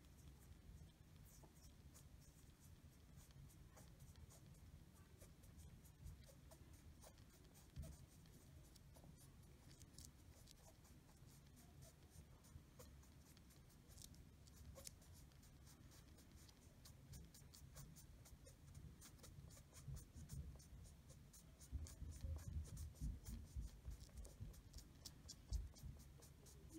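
Faint scratchy rubbing of a foam swab tip being worked back and forth to spread liquid-metal thermal compound over a small metal surface, with soft handling bumps growing louder near the end.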